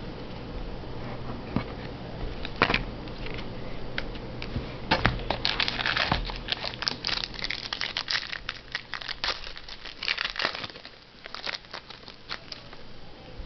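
Plastic pack wrapper crinkling and tearing as a pack of trading cards is opened and handled, in an irregular run of crackles that is busiest in the middle.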